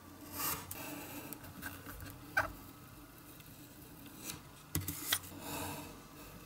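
Snap-off craft knife blade scoring and cutting printed card along a steel ruler on a cutting mat: short scratchy strokes with a brief squeak about two and a half seconds in. Two sharp clicks just before five seconds come as the metal ruler is set down, followed by a longer scratchy cut.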